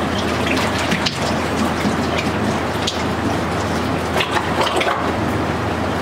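Liquid clay slip splashing and pattering as it is poured from a jug into a plastic drum, many small irregular drips and splashes over a steady low hum.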